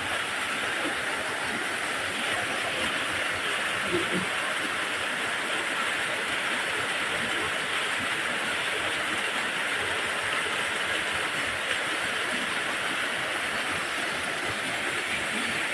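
Waterfall rushing: a steady, even roar of falling water that holds unchanged throughout.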